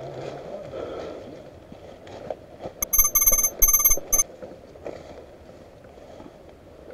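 Loud, high-pitched electronic beeping in two quick runs of rapid pulses, together lasting about a second and a half, a little under halfway in.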